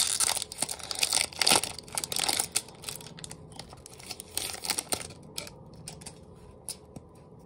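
Foil wrapper of a Pokémon TCG booster pack crinkling and tearing as it is pulled open by hand. After about five seconds this gives way to a few lighter clicks and rustles as the cards are slid out and handled.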